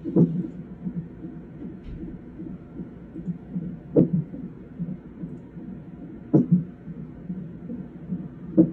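An unborn baby's fast heartbeat pulsing steadily, with four sharp, louder thumps spaced about two to four seconds apart: the baby hiccuping in the womb.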